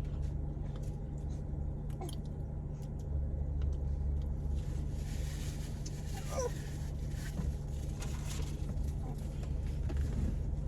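Steady low hum of a car idling, heard inside the cabin, with scattered small clicks and rustles. About six seconds in a baby gives a brief high squeal.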